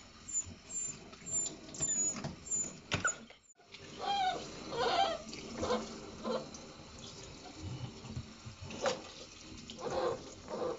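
A puppy whining and crying, in short calls that bend up and down and bunch together about four to five seconds in, over water from a kitchen sink sprayer splashing as it is rinsed.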